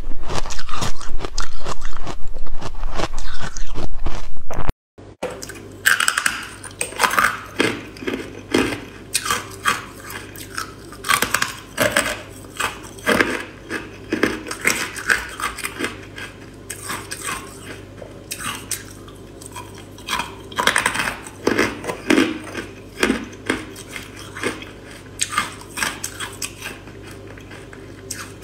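Carbonated ice being bitten and crunched close to the microphone. First comes a very loud, dense run of crunching; after a brief break there are separate crisp bites and crunches about once a second.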